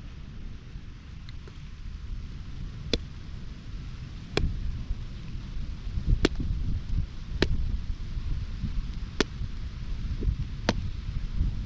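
A green coconut being struck with a blade: six sharp knocks, roughly one every second and a half, over a low wind rumble on the microphone.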